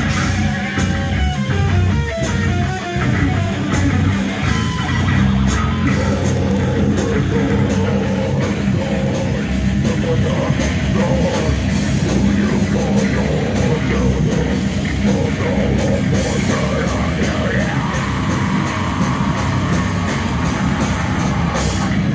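Live heavy metal band playing loud distorted electric guitars, bass and drums, with a vocalist yelling into the microphone.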